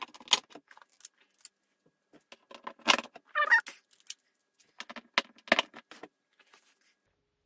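Small metal screws and adapter plates clinking and rattling against the inside of a plastic seatbox as they are pushed through drilled holes, with scattered knocks on the plastic. The loudest bursts come about three seconds in and again about five and a half seconds in.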